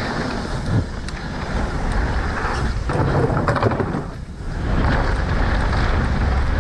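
Mountain bike riding fast down a dirt trail: wind buffeting the microphone, with the tyres rolling over the ground and the bike clattering and rattling over bumps.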